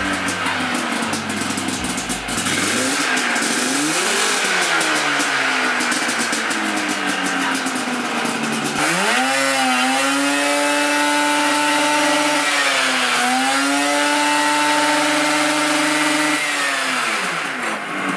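500cc two-stroke twin Yamaha Phazer snowmobile engine running on its new carburetors, revving up sharply about halfway through and holding high, dipping briefly, then holding high again before dropping back near the end. The revs drive the scooter's raised rear wheel on the stand.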